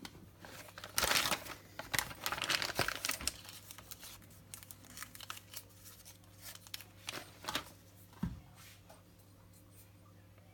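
Crinkling and rustling of packaging as a new billet piston is unwrapped and handled. The crinkling comes in dense bursts for the first few seconds and thins to lighter rustling later, with one dull thump a little past the middle.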